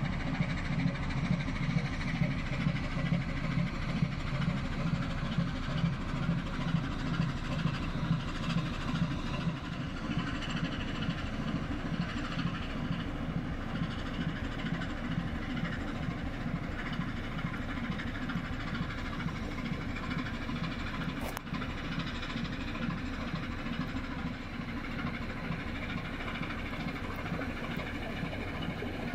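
Diesel engine of a loaded inland cargo ship running as the vessel passes: a steady low throb with regular beats about twice a second, which evens out and drops a little about a third of the way in. Over it lies the hiss of the hull's wash.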